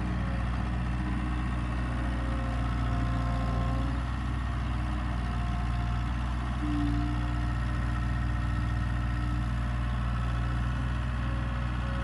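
John Deere 318D skid steer's diesel engine running steadily as the loader works a gravel pile, with a brief louder tone about seven seconds in.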